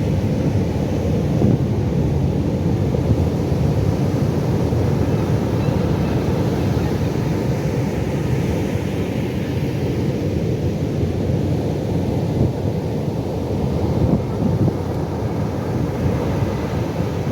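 Ocean waves breaking on a beach: a steady, deep wash of surf with no distinct breaks standing out.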